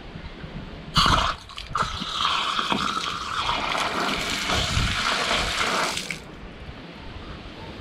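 Brass garden tap opened, water gushing out and splashing onto the pipe and ground for about five seconds, then cut off suddenly when the tap is shut. The tap is newly fitted and plumbed in.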